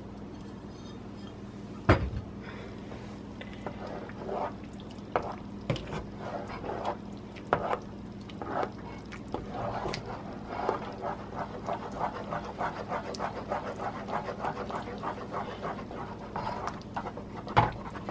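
A spatula stirring thick, cheesy potato soup in a stainless-steel pot to melt the shredded cheese in: quick rhythmic squelching strokes that come faster in the second half. A sharp knock against the pot about two seconds in, and another near the end.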